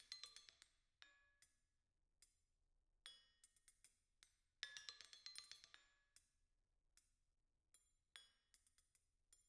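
Spoons struck with yarn mallets in a percussion duet: soft flurries of bright, ringing clinks with short pauses between them, the densest flurry about halfway through.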